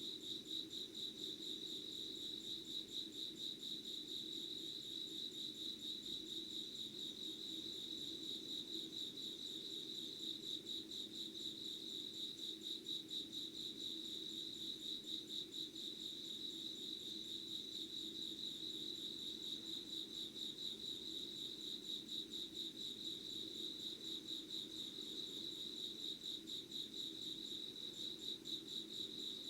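An insect trilling: a steady, rapid pulsed trill at one high pitch that runs on without a break.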